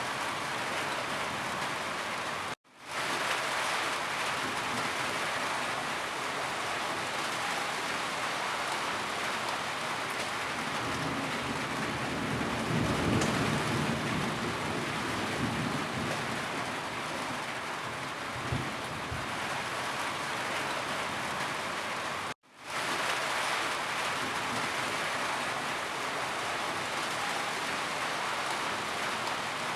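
Steady heavy rainfall, an even hiss of drops on surfaces, with a low rumble swelling in the middle. The sound cuts out briefly twice and fades back in.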